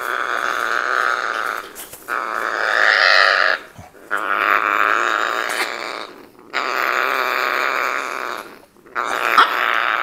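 Young parrots begging while being hand-fed: harsh, rasping calls in long bouts of about two seconds, broken by four short pauses. The calls are the chicks' feeding response during crop feeding.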